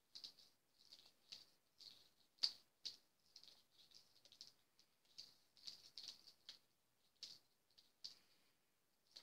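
Faint, irregular clicking and light rattling of a crochet hook against a circular knitting needle as loops are slipped from the hook onto the needle, with one sharper click about two and a half seconds in.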